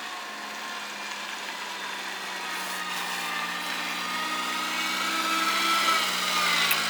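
An engine running steadily with an even, pitched drone, growing louder toward the end.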